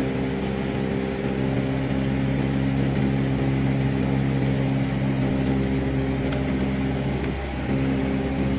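Steady drone of an aircraft's engine heard from aboard: a low hum of several tones over a rushing noise, dipping briefly about seven seconds in.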